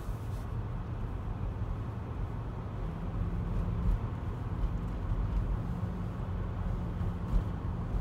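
Car driving on a snow-covered road, heard from inside the cabin: a steady low rumble of engine and tyre noise, with a steady low hum joining about three seconds in.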